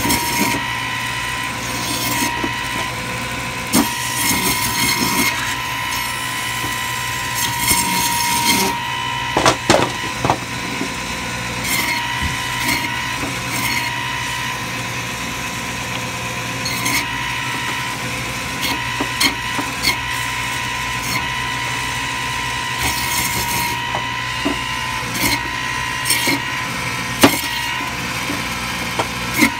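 Butcher's meat band saw running with a steady high whine, its blade cutting a duck into pieces through meat and bone. Intermittent rasping crunches and knocks are heard as pieces are pushed through the blade.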